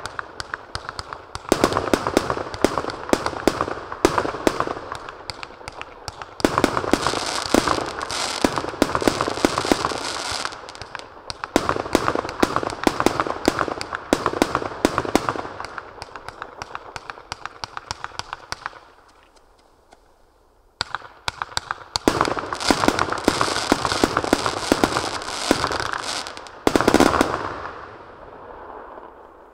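Skysong SF-8101 Sky High 100-shot consumer fireworks cake firing shot after shot: rapid overlapping launch thumps and bursts with crackling. It pauses briefly about two-thirds of the way through, resumes, then fades out as the last shots finish.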